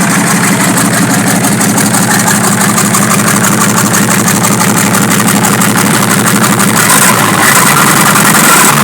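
Chevrolet D60 truck's Perkins diesel engine idling steadily with fast, even firing pulses; about seven seconds in the sound turns brighter and hissier. The engine is freshly started and still cold.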